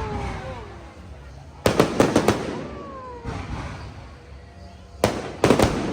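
Fireworks display: a quick volley of several sharp bangs about a second and a half in, and another near the end.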